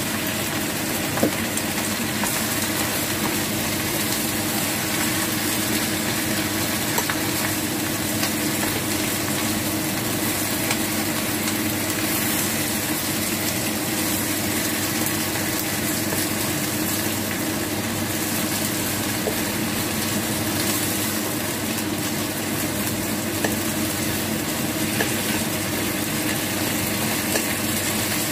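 Leafy greens sizzling steadily in a hot frying pan while being turned with wooden chopsticks, with a few light clicks of the chopsticks against the pan.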